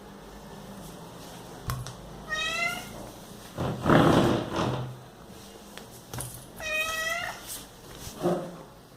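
House cat calling: two short high-pitched meows, with a louder breathy sound between them and a brief lower call near the end.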